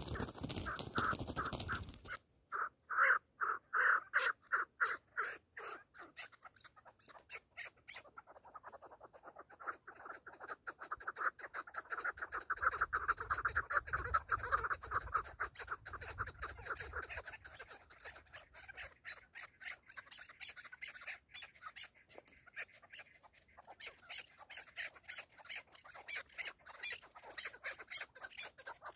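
Chukar partridges calling: long series of short, clucking notes repeated about three a second, then faster and denser, with more than one bird calling at once. A brief rush of noise comes in the first two seconds.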